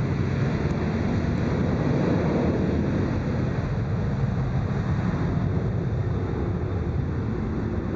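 Boeing 737 jet engines at takeoff thrust, a steady low rumble as the airliner rolls down the runway.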